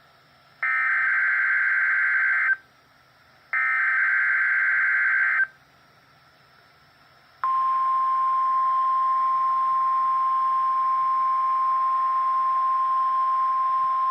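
NOAA Weather Radio SAME alert header: two bursts of digital data tones, each about two seconds long, with a second of silence between them. About seven seconds in, the 1050 Hz weather radio warning alarm starts as one steady, high, unbroken tone over radio hiss. This is the signal of the Required Weekly Test that switches on weather alert receivers.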